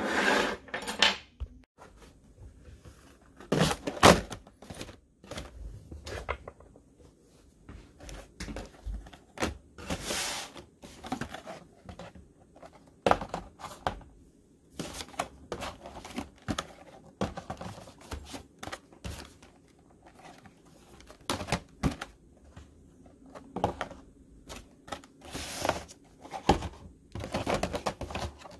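Hand-handling sounds on a wooden tabletop: metal hobby tools gathered up, then carded action figures in plastic blisters moved and set down, giving irregular clicks, taps and crinkly rustles with a sharp knock about four seconds in.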